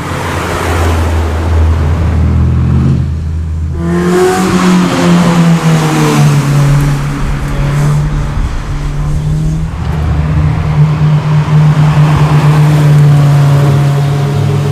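Car engines running loud at close range: a low, steady engine drone gives way about four seconds in to a louder, higher engine note from a car under acceleration, which then holds fairly steady.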